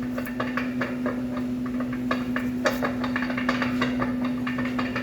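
Irregular metallic clicking and clanking from a broken front CV axle on a Ram 1500 pickup, over a steady hum. The clicking is the sign of a broken CV axle that has to be replaced.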